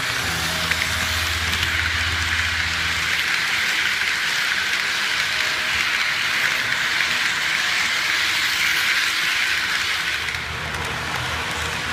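Model electric train passing close on the layout: a steady hiss of small wheels rolling on the rails. A low electric motor hum is heard in the first three seconds as the locomotive goes by.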